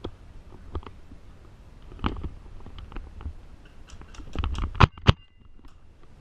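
Airsoft gun firing two quick sharp shots about five seconds in, among scattered clicks and rustling of handled gear.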